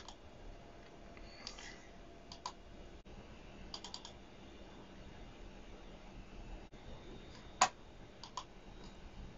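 Computer mouse clicks, a few scattered single clicks and a quick cluster about four seconds in, the loudest a sharp click a little after seven and a half seconds, over faint room hiss.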